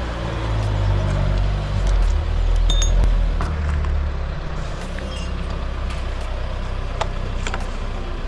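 An engine running at low revs, strongest in the first half, with a few sharp clicks and a short metallic clink about three seconds in.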